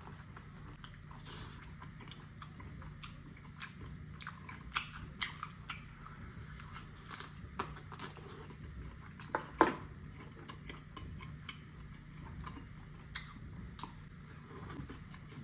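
Close-miked eating sounds: chewing and biting on barbecue ribs and snap peas, with scattered wet mouth clicks and smacks, one sharper than the rest about two-thirds of the way through, over a steady low hum.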